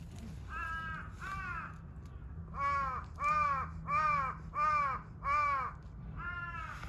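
Crow cawing repeatedly: two caws, then a steady run of five louder caws, and another near the end.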